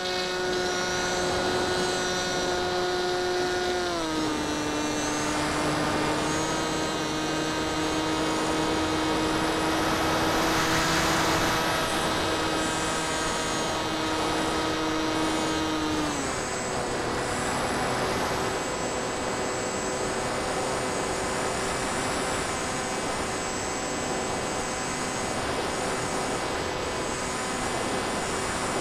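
Electric motor and propeller of a Phantom FX61 flying wing whining steadily in flight. The pitch steps down about four seconds in and again about sixteen seconds in as the motor slows, and a rush of air swells around ten to twelve seconds in.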